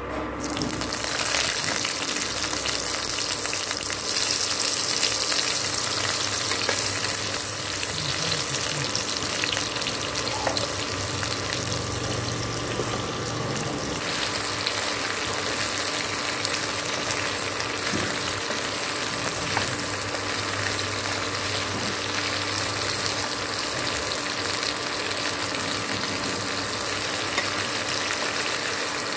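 Sliced bitter gourd sizzling as it hits hot oil in a kadai, starting about half a second in and loudest over the first several seconds, then settling to a steady sizzle. A flat spatula stirs the slices through the oil.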